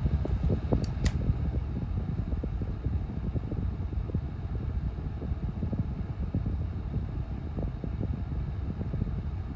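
Honeywell HT900 9-inch table fan running steadily on low speed: a steady low rush of air. A couple of sharp clicks about a second in.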